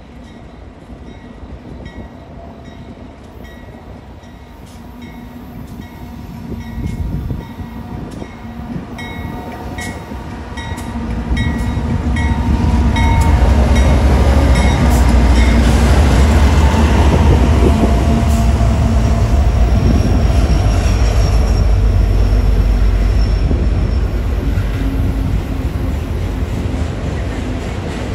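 Freight train of BNSF diesel locomotives hauling double-stack container cars, approaching and passing underneath. The engines' rumble builds and is loudest about twelve seconds in as the locomotives go by. The rolling container cars follow, slightly quieter.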